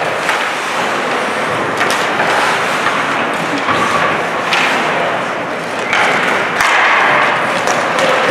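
Ice hockey in play: skate blades scraping across the ice, with several sharp knocks of sticks and puck against the boards.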